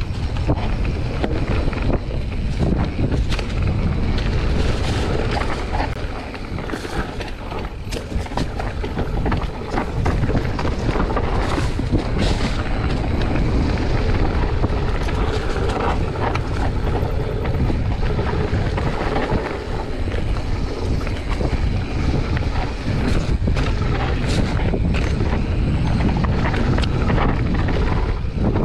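Mountain bike descending a dirt-and-leaf trail at speed: wind buffets the handlebar-mounted microphone over tyre rumble on dirt and dry leaves, with frequent clicks and rattles from the bike over bumps.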